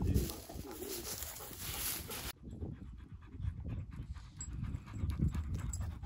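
Hunting dogs panting hard and steadily. A hiss lies over the first two seconds and cuts off suddenly.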